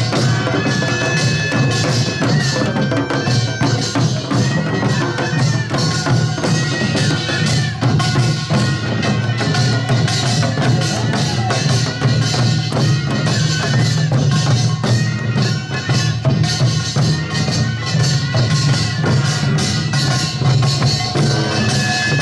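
Korean farmers' band music (pungmul): small gongs and drums struck in a fast, continuous rhythm, with a few held high notes over the beat.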